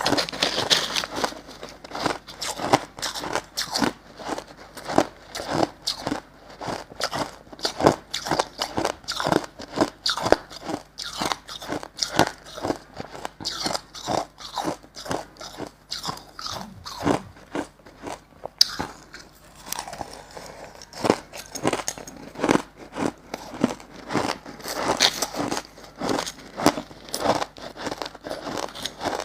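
Close-up crunching and chewing of crushed ice, a dense run of sharp, irregular crunches that thins briefly about two-thirds of the way through.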